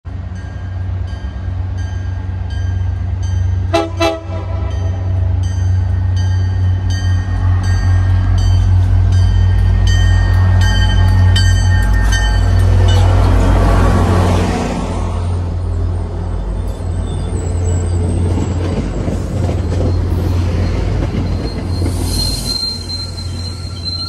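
MBTA commuter rail diesel locomotive approaching and passing close by, its engine rumbling under a bell ringing about twice a second. There is a short horn blast about four seconds in. The noise peaks as the locomotive passes midway, then the coaches roll by with wheel squeal near the end.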